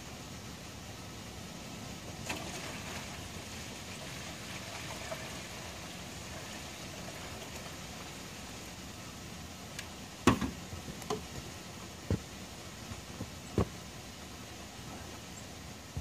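Maple sap pouring from a plastic jug into a plastic container for a few seconds, then several sharp hollow knocks as the plastic containers are handled and set down, the first knock the loudest.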